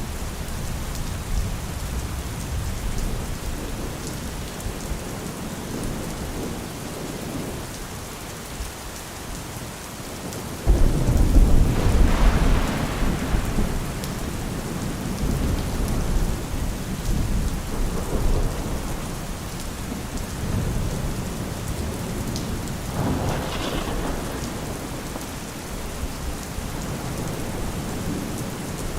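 Steady rain falling, with thunder: a sudden loud clap and rumble about a third of the way in that lasts several seconds, and a fainter rumble later on.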